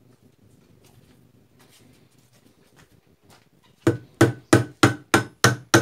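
Hammer blows on a metal rod, driving a mixer grinder's coupler down onto the motor shaft. Seven sharp strikes, about three a second, starting about four seconds in, after a few seconds of quiet handling.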